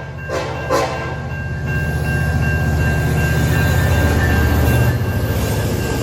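Diesel locomotive horn giving two short blasts within the first second, then the locomotive's diesel engine running with a steady low rumble and a steady high whine.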